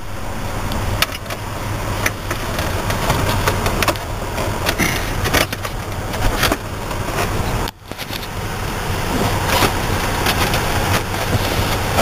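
Scattered clicks and knocks of a 7 mm socket and ratchet working out the screws of the plastic panel under the steering wheel. A steady low hum runs underneath.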